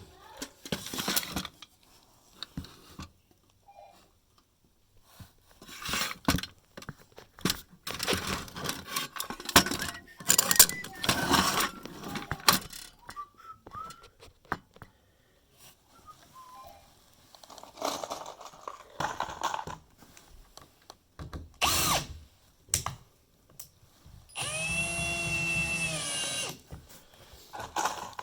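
Power drill driving screws through a floorboard into the joists: short runs of the drill with knocks and handling between them, then one steady run of the motor lasting about two seconds near the end.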